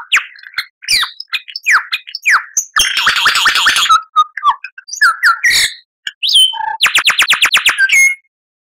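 Lyrebird singing a varied mimicry song: whistled and sliding notes, a harsh rasping passage about three seconds in, and a fast, even run of about ten notes a second near the end.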